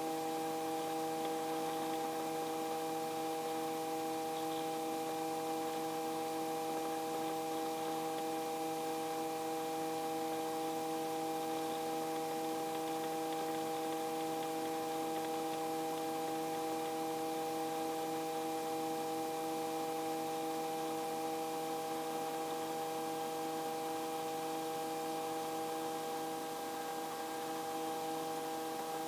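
Steady drone of a small helicopter in level cruise, heard inside the cabin: several constant humming tones over an even hiss.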